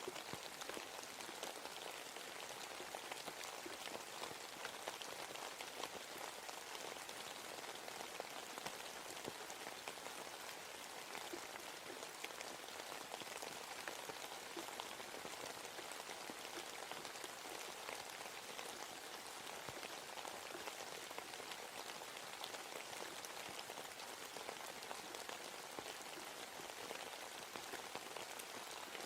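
Steady rain falling in a forest, a dense patter of countless drops.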